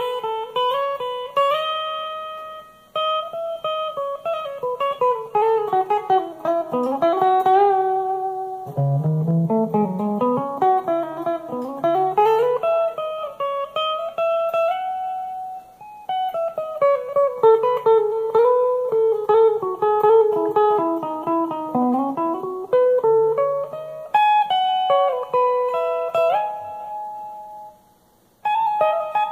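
Solo guitar playing single-note melodic runs with sliding pitches, stopping briefly about three seconds in, again around the middle, and just before the end.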